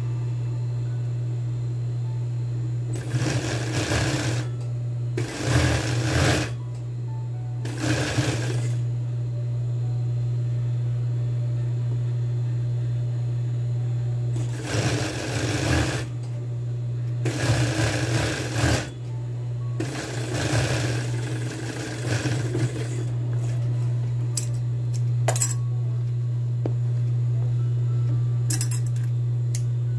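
Industrial overlock (serger) machine stitching denim in six short runs of one to two seconds each, over the steady hum of its running motor. A few light clicks near the end.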